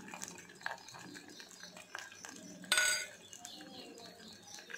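A single sharp clink of metal kitchenware, ringing briefly, about three seconds in, over faint scattered ticks.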